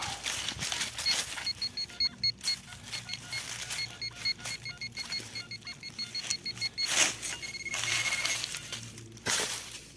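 Metal detector sounding a rapid run of short beeps, then a longer held tone near the end, signalling a buried target that reads about 15-16. Bursts of scraping noise from the ground mix in, loudest about seven seconds in.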